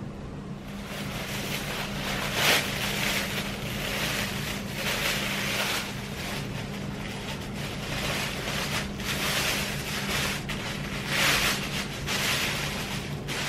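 Thin clear plastic bag rustling and crinkling in irregular bursts, starting about a second in, as a bundle of pennywort stems and leaves is handled and pulled out of it. A low steady hum runs underneath.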